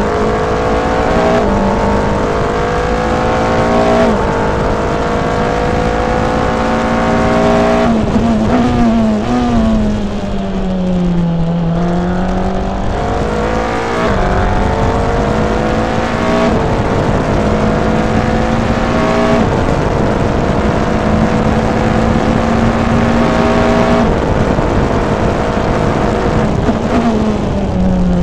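Onboard sound of a Formula Renault 3.5 (World Series by Renault) single-seater's 3.5-litre V6 at racing speed, its pitch climbing through the gears with quick upshifts every few seconds. About eight seconds in it brakes and downshifts, the pitch sagging low for a slow corner before it accelerates through the gears again, and it drops once more near the end.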